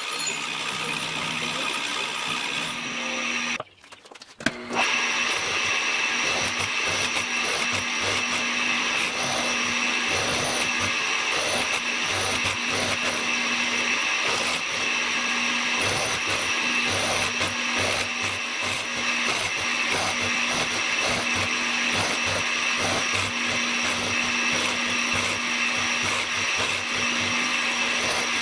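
Milling machine running steadily, its end mill cutting into a clamped metal bar. The sound drops out briefly about four seconds in, then the same steady running and cutting goes on.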